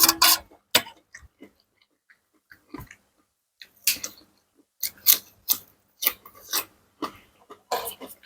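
Close-miked chewing and wet mouth sounds of someone eating a salad of seafood, mushrooms and fresh vegetables, in irregular short bursts. The bursts are loudest right at the start, sparse for a few seconds, then come more often in the second half.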